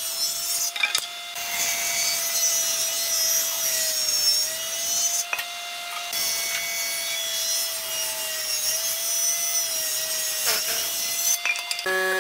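Power tool working wood: a steady motor whine under the hiss of the cut, with a couple of short breaks in the cutting.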